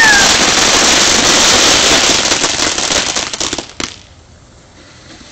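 Ground fountain firework spraying sparks with a loud, dense crackling hiss. It ends with a sharp pop about four seconds in and then dies away.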